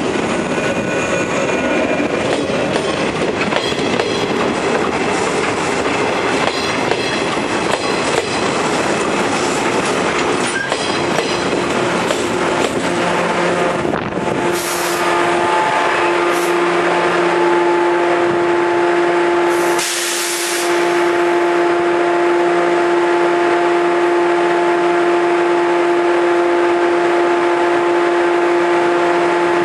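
A 113 series train moving slowly across a level crossing, its wheels rumbling and clattering over the rails. About halfway through, the rumble gives way to a steady ringing tone, broken by a few short hisses, the longest about two thirds of the way in.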